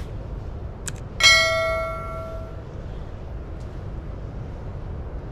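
Subscribe-button sound effect: a short click, then a bright bell ding a moment later that rings out and fades over about a second and a half. Under it runs a steady low background rumble.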